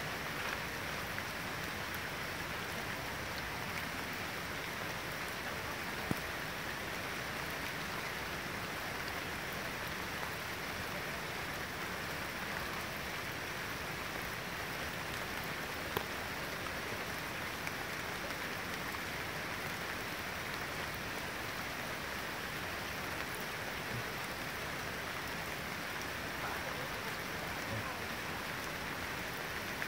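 Steady rain, an even unbroken hiss, with a couple of single sharp taps.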